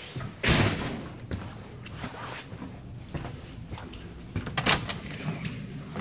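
Handling rustles and a few knocks and thumps from someone moving through a house with the camera. The loudest is a short burst about half a second in, and another comes near five seconds, with small clicks between.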